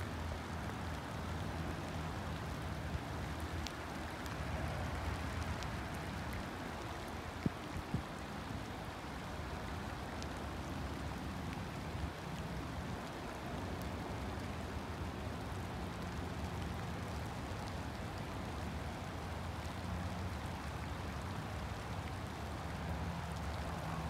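Steady rain and running water, with a low steady hum underneath. Two small knocks come about seven and a half seconds in.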